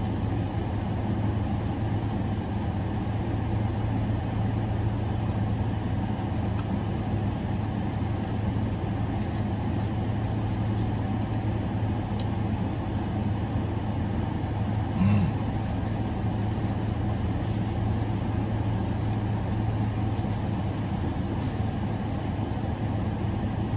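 Steady low hum of a parked car idling with its climate fan running, heard from inside the cabin. Faint chewing ticks sound over it, and there is a short hum of the eater's voice about fifteen seconds in.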